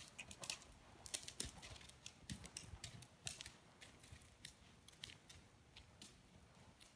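Faint, irregular light clicks and taps from a ridden horse trotting on sand arena footing: hoofbeats and the jingle of its tack.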